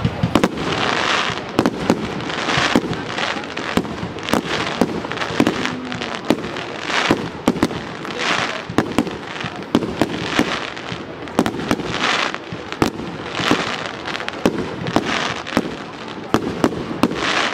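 Fireworks display: a fast, unbroken run of sharp bangs from shells launching and bursting, with crackling, hissing bursts between them.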